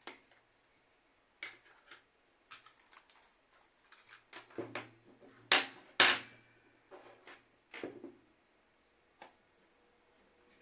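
Handling noise: irregular clicks, taps and rustles of small hard objects being picked up and moved, with two louder knocks about five and a half and six seconds in.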